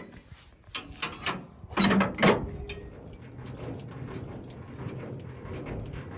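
Metal clicks and clanks as a semi-trailer's landing-gear crank handle is unhooked and swung out, with the loudest clanks about two seconds in, then a low rattle.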